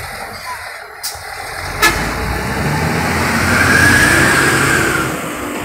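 A motorcycle passing close by, its engine swelling to a peak about four seconds in and then fading, over the running of a heavy truck's engine. Two sharp clicks sound about one and two seconds in.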